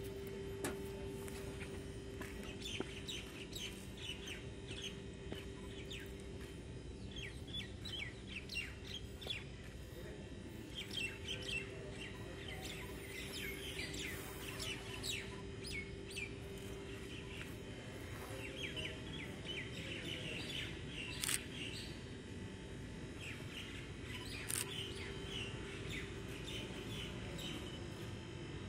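Small birds chirping again and again in short, high calls over a steady low hum, with two sharp clicks about three-quarters of the way through.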